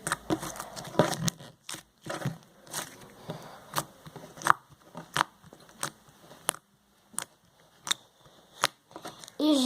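Homemade slime being squeezed and stretched by hand, giving an irregular string of sharp wet clicks and pops, about one or two a second.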